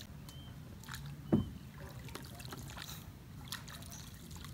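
Small knocks and clicks of handling on a small fishing boat over a low steady rumble, with one heavy thump just over a second in.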